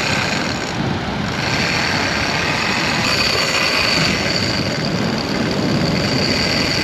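Small electric motor running with a steady high whine, over a dense hiss; the whine comes in and strengthens a couple of seconds in.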